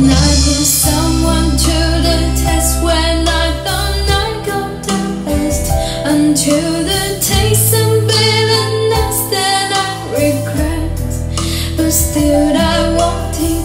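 A song with a steady bass line and a woman singing, played back loudly through a DIY speaker cabinet driven by a 741-circuit Class-AB amplifier.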